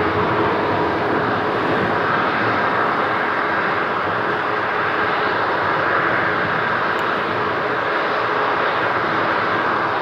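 Jet engines of a widebody twin-engine airliner running at idle thrust as it taxis: a steady rushing hum with faint, steady whining tones.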